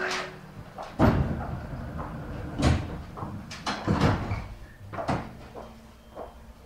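Irregular thumps and knocks inside a stopped commuter train car, about five over a few seconds, the loudest about a second in.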